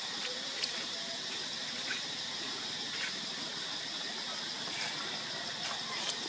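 Steady, high-pitched outdoor background hiss with a few faint ticks and rustles scattered through it.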